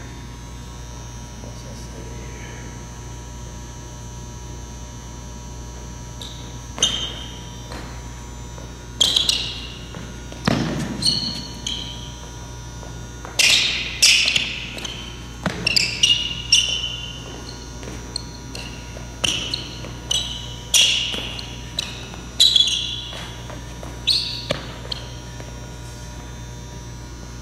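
Sneakers squeaking and feet stamping on a gym floor during quick footwork cuts and spins: sharp, short squeals in quick clusters from about seven seconds in to near the end, one heavier stomp among them, over a steady hum.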